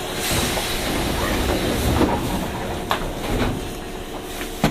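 Yokohama Municipal Subway 2000-series chopper-controlled train running, a steady rumble of wheels on rails. A few sharp clicks come through about two and three seconds in and again near the end.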